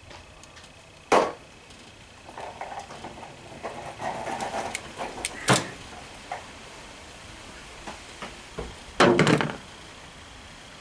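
Hands working on wiring with a crimping tool: rustling and handling noise with a few sharp clicks, one about a second in and one about five and a half seconds in, and a louder short clatter about nine seconds in.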